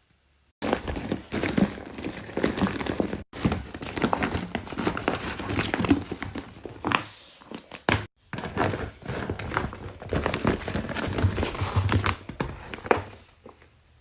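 A handmade paper squishy of taped paper being squeezed and handled, its paper and tape crinkling and crackling densely, broken by a few abrupt brief silences.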